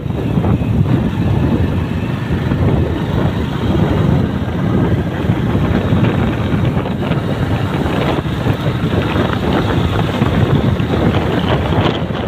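Wind buffeting the microphone on a moving motorbike, a steady low rushing sound, with the bike's running underneath.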